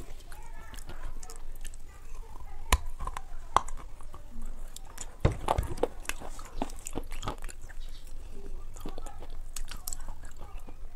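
Close-miked biting and chewing of crumbly white chunks: a run of sharp crunches and wet mouth clicks, with the loudest bites about three seconds in and a cluster of crunches around five to six seconds in.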